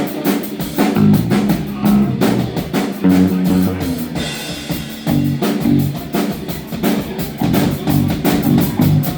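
Drum kit and guitar playing together on a live stage, changing notes over a steady run of drum hits, the band playing through its instruments during a sound check.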